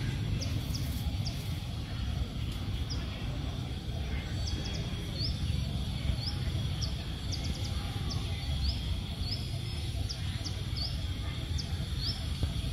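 Steady low outdoor rumble with a small bird chirping over it: short, high, upward-flicking chirps repeating about twice a second.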